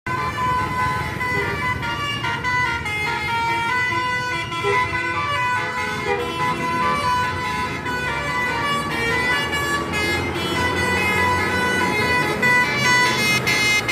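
A bus's basuri (telolet) musical horn playing a loud, fast-changing melody of horn notes, with a low rumble underneath.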